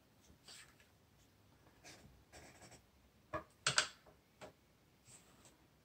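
Handling noise from a Tristar Setter 20 gauge over-under shotgun being laid across a digital scale: faint rubbing and scraping, then a few light knocks about three and a half to four and a half seconds in as the gun settles on the scale.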